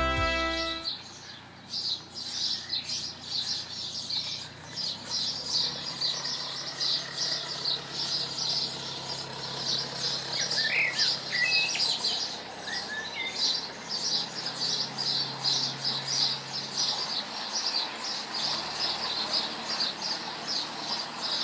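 Birds chirping: one repeats a short high note about three times a second throughout, with a few other calls near the middle. Under them is a faint low steady hum of a passing narrowboat's engine.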